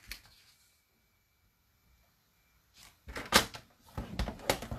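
Cardstock being scored on a paper trimmer: after a near-silent stretch, a run of sharp clicks and knocks starts about three seconds in as the scoring slider is run along the rail and the card is shifted on the board.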